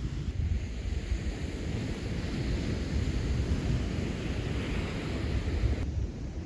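Wind blowing across the microphone: a steady rushing noise with a deep, fluctuating rumble. Near the end the higher part of the noise suddenly drops away.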